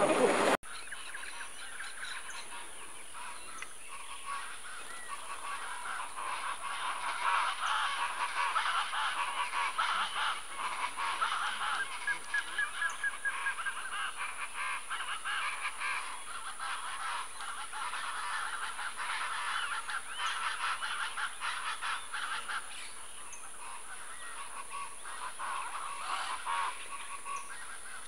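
Birds calling in a continuous, rapid chattering of honking calls, loudest about midway and thinning out near the end, over a steady thin high-pitched tone.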